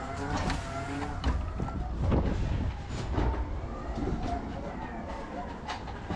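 Electric pallet truck driving a loaded pallet: its motor whines, rising and falling in pitch as it speeds up and slows, with knocks and clatter from the wheels and pallet on the trailer floor. The loudest knock comes about two seconds in.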